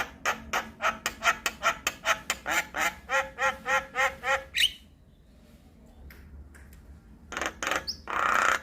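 Javan myna calling in a fast run of harsh, repeated notes, about five a second. The run breaks off a little past halfway, then the calls start again with a loud burst of harsh chatter near the end.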